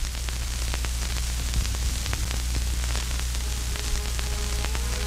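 Static-noise sound effect: a steady hiss full of crackling clicks over a low hum. A faint tone comes in near the end and slides up slightly in pitch.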